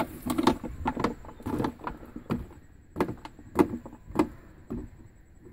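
Woven bamboo fish trap shaken and knocked against a plastic jug to tip the catch out: a run of about a dozen irregular knocks and rattles, thinning out near the end.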